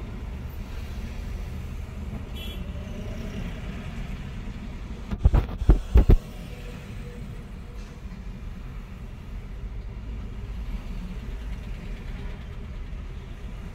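Low, steady rumble of slow city traffic heard from inside a car. About five seconds in, four or five loud thumps come in quick succession over about a second.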